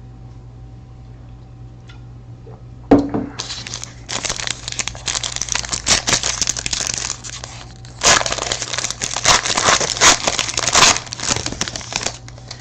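A trading-card pack wrapper torn open with a sharp snap about three seconds in, then crinkled in two long spells while the cards are pulled out.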